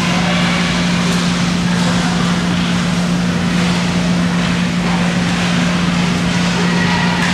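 Indoor ice rink background noise: a steady, loud rushing sound with a constant low hum underneath, unchanging throughout.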